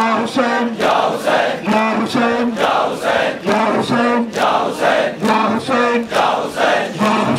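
Large crowd of men chanting a mourning refrain in unison, with the massed slaps of hands striking bare chests in matam keeping a steady beat.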